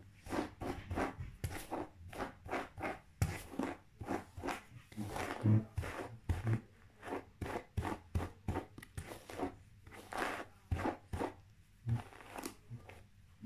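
Hairbrush strokes through long hair: a quick, irregular run of brushing strokes, about two or three a second.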